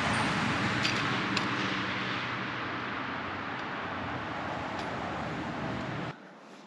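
A vehicle driving, with steady road and engine noise and a couple of faint clicks. It cuts off abruptly near the end.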